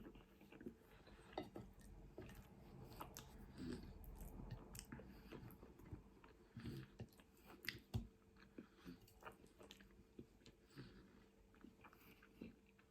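A person chewing a mouthful of food close to the microphone, with faint, irregular wet mouth clicks and smacks.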